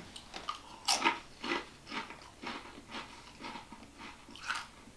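Crunchy nacho cheese tortilla chip being bitten and chewed. A loud crunch comes about a second in, then crunches about twice a second, with another loud one near the end.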